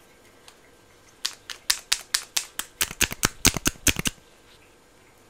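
Clear plastic lip gloss tube handled close to the microphone, giving a quick run of about twenty sharp plastic clicks and taps. The run starts about a second in and lasts about three seconds.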